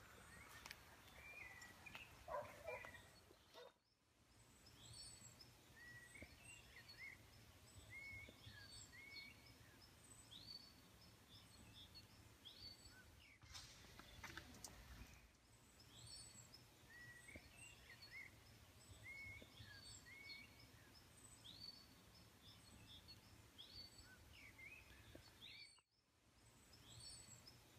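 Faint birdsong: several birds giving short, repeated chirps and whistles over a low steady hiss.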